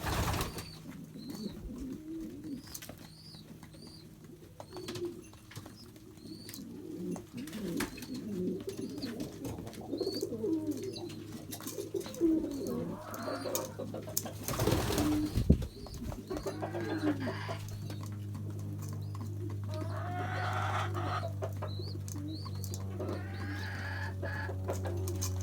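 Pigeons cooing, many low rolling coos overlapping, with a thin repeated high chirping above them. A brief clatter sounds about halfway through, and a steady low hum comes in about two-thirds of the way along.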